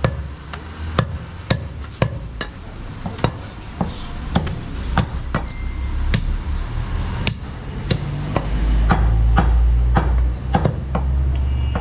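Heavy cleaver chopping goat meat on a wooden stump chopping block: a string of sharp chops, about two a second, with a deep rumble swelling under them late on.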